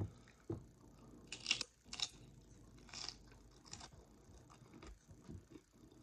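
A person chewing a tortilla chip topped with steak. There are four or five faint crunches in the first four seconds, then softer chewing.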